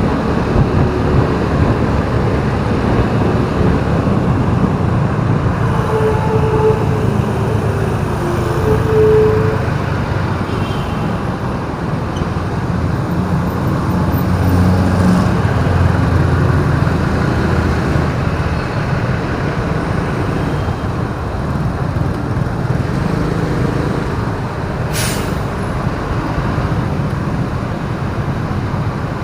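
Steady city street traffic and road noise heard from a moving vehicle, with vehicles running close by, a few short tones about six to nine seconds in, and a brief sharp hiss near the end.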